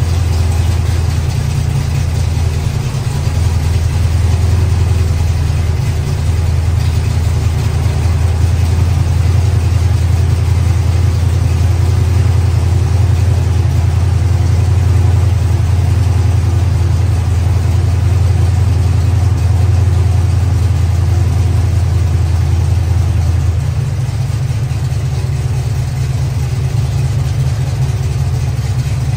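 Chevy Nova's V8, fitted with a new Quick Fuel Brawler carburetor, idling steadily on its first start-up after the new intake, valve covers and carburetor went on. The idle note changes and drops slightly a few seconds before the end.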